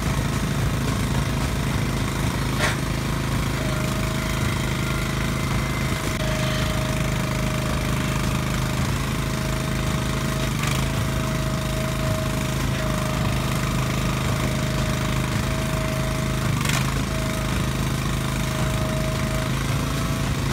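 Hydraulic log splitter's small engine running steadily, with a thin whine from the hydraulics that comes and goes. Two sharp knocks cut through, about three seconds in and again about seventeen seconds in.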